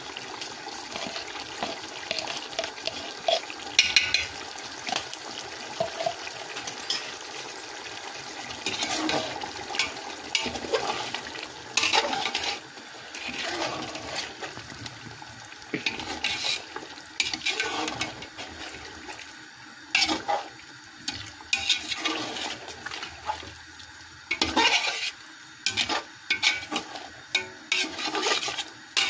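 Metal slotted spoon stirring and scraping chicken pieces in a large aluminium pot, with irregular clinks and knocks against the pot, over a steady watery hiss of the meat cooking in its juices. The stirring clatter becomes frequent from about halfway through.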